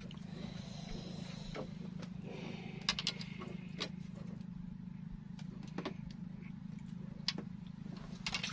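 A steady low hum with a few sharp clicks and knocks scattered through it.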